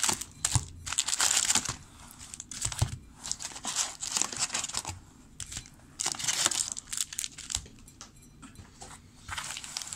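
2007 Upper Deck football foil trading-card packs crinkling in irregular bursts as they are handled, pulled out of the hobby box and stacked, growing quieter over the last couple of seconds.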